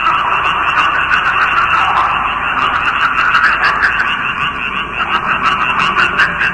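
Designed ghost sound effect: a dense, steady hissing and buzzing noise with rapid, irregular crackling clicks, wavering in level.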